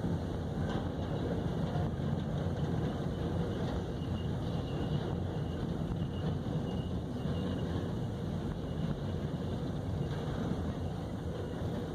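Freight train cars rolling past close by: a steady rumble of steel wheels on the rails, with a few faint brief high squeals.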